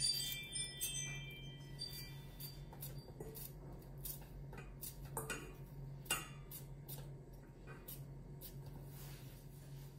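Pieces of red bell pepper dropped by hand into a stainless steel bowl: scattered light taps and clinks, with a ringing in the first couple of seconds, over a steady low hum.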